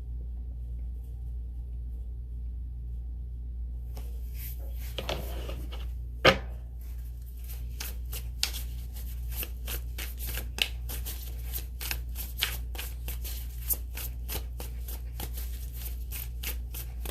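Steady low hum for the first few seconds, then a deck of tarot cards being shuffled: a fast run of small card clicks and snaps, with one sharper slap about six seconds in.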